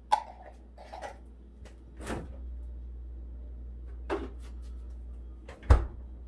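Kitchen handling sounds: about five separate knocks and clicks, the loudest a heavy thump near the end, over a steady low hum.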